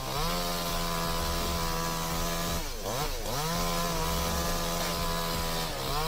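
Chainsaw running at high throttle with a steady, even pitch. About three seconds in, the pitch drops briefly and climbs back, and it starts to drop again near the end.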